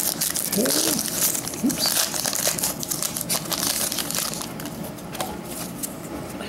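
Crinkly foil wrapper of a baseball card pack being torn open and crumpled by hand: a dense run of quick crackling rustles that dies down after about four seconds.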